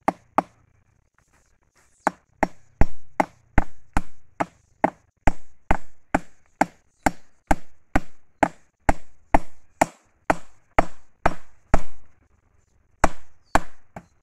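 Hammer driving a fence staple into a wooden fence post: sharp, regular blows about two a second, with a pause of over a second near the start and a short one near the end.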